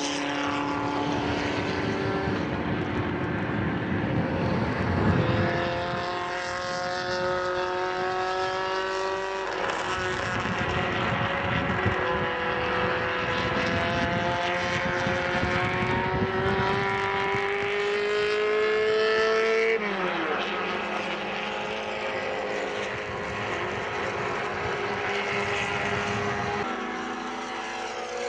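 850 Promocional class race car engines at full throttle, rising in pitch through long pulls. The pitch drops sharply about ten and twenty seconds in as the cars shift or lift. After the second drop the engines run lower and steadier.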